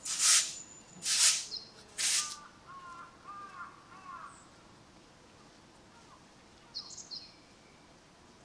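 A crow caws three times, about a second apart, loud and harsh. Softer warbling bird notes follow, and near the end a small bird gives a brief high chirp.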